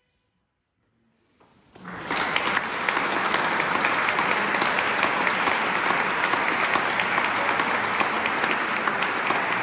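Audience applause breaking out about two seconds in, after a short silence, then going on steadily.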